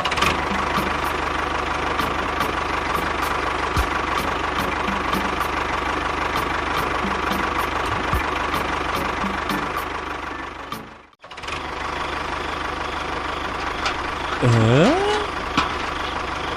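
A small motor running steadily, with a held whine and a light regular ticking. It cuts out abruptly about two-thirds of the way through, then runs on, with a brief gliding sound near the end.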